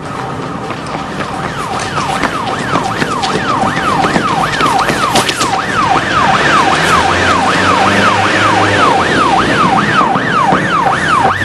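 Police van siren on a fast yelp, its pitch sweeping up and down about two or three times a second. It grows louder over the first half as the van approaches, then holds steady.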